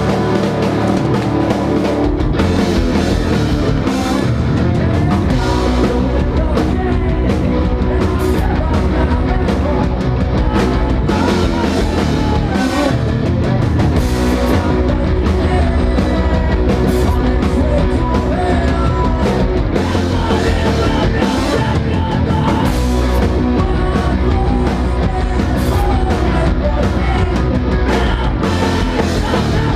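Rock band playing live, loud and dense, with guitar and drum kit; a deep low end comes in about two seconds in.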